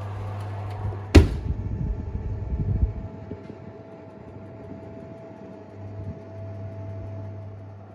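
An oven door is shut with a single sharp bang about a second in, followed by a couple of seconds of low thumping. A steady low hum of the running oven carries on around it, with a faint steady whine in the second half.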